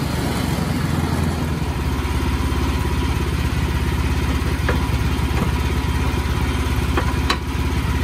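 Engine of a small Wood-Mizer LX25 band sawmill running steadily while its band blade saws through a cant, with a few light clicks in the second half.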